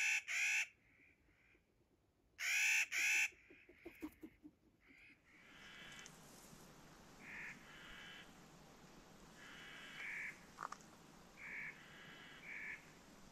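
Clark's nutcracker giving harsh, grating calls. Two loud pairs come in the first three seconds, then fainter calls of the same kind repeat every second or two over a steady hiss.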